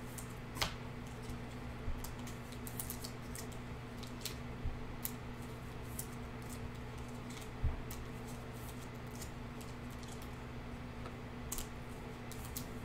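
Light clicks and rustles of a trading card being handled and slid into clear plastic sleeves, scattered irregularly, over a steady low electrical hum.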